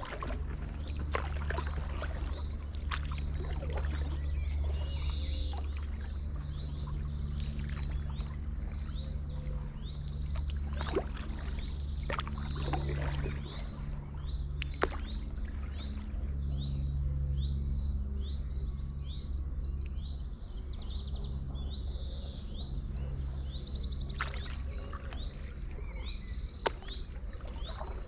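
Small birds singing in repeated quick high chirps and trills, over the splash and drip of a paddle dipping into canal water now and then and a steady low rumble.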